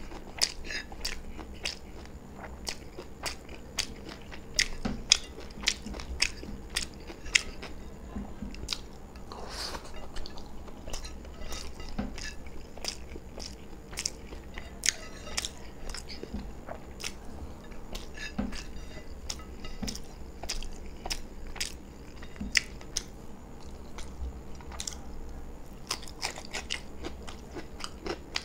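Close-miked eating sounds: a person chewing mouthfuls of beef biryani with wet mouth noises and frequent sharp, crunchy clicks, irregular and several a second.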